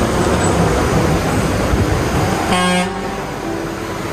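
A vehicle horn gives one short toot about two and a half seconds in, over a steady rush of outdoor road noise.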